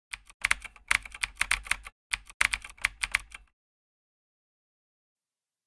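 Computer-keyboard typing sound effect accompanying an on-screen typing-text animation: two runs of rapid key clicks with a brief break between them, ending about halfway through.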